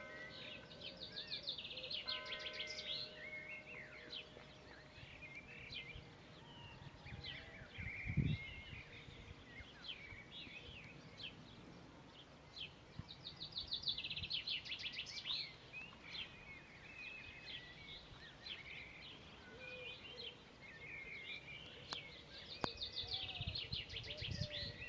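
Songbirds singing, with rapid trills that come and go several times over a steady outdoor background hiss, and a single low thump about eight seconds in.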